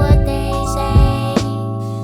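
Instrumental soul/R&B hip-hop beat: sustained chords over a kick drum and snare, with no vocal.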